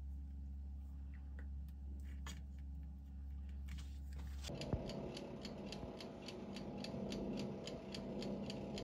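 Soft strokes of a pastry brush dabbing egg wash onto scone dough over a low hum. About halfway through, a running oven takes over: its fan hums and a mechanical timer ticks evenly, about four ticks a second.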